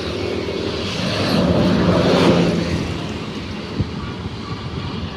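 A bus passes close by: engine and tyre noise swell to a peak a little after two seconds in, then fade away.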